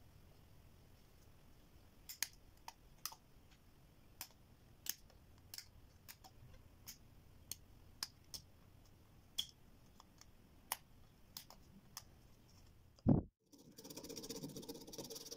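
Metal tip of a small tool ticking and scraping against the LED circuit board of an opened LED bulb, a dozen or so sharp, irregular ticks. A single thump near the end, then a steady scratchy rubbing as a folded strip is rubbed over the board.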